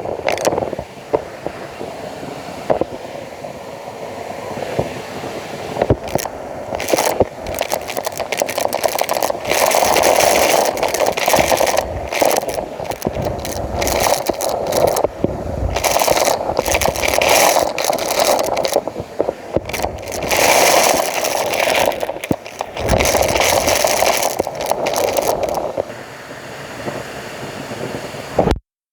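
Numatic Hetty vacuum cleaner in use, its suction noise swelling and fading every few seconds as the nozzle is worked back and forth, with scraping and crackling along the floor. The sound stops abruptly near the end.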